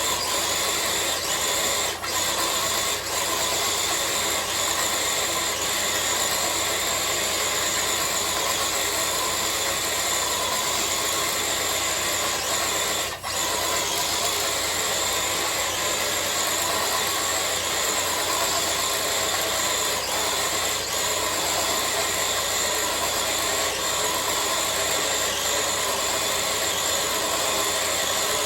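Traxxas TRX-4 RC crawler truck's electric motor and geared drivetrain running steadily under load as it tows a sled weighted with three bricks. There are a couple of brief breaks in the sound.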